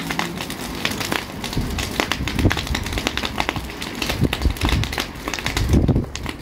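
Dry brush burning, with dense, irregular crackling and popping over a steady rush of flame. A short low rumble rises near the end.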